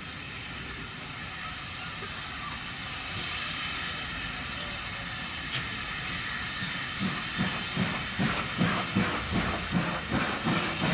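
Steam locomotive approaching on the line with a steady hiss of steam, joined about two-thirds of the way through by a rhythmic beat of about two to three a second that grows louder as the train nears.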